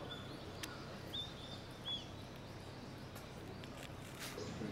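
Quiet outdoor ambience: a steady low background noise with a few short, high bird chirps about a second in, and a couple of faint clicks.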